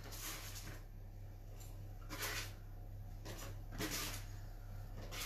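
Spatula scraping under freshly baked scones on a baking tray and setting them onto a wire cooling rack: a few faint, short scrapes and taps over a steady low hum.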